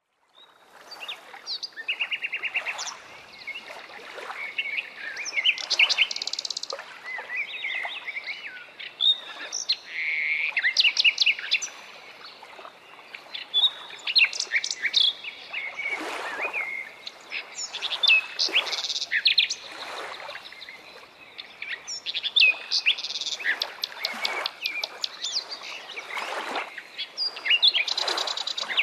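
Birdsong: several birds chirping and singing in quick trills and rapid repeated notes, with a few brief rushing swishes.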